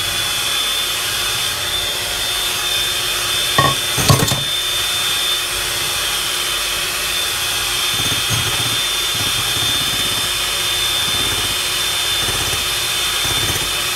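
Electric hand mixer running steadily, its beaters whipping egg whites with the yolks mixed in, with a constant high whine. There are a couple of short knocks about four seconds in.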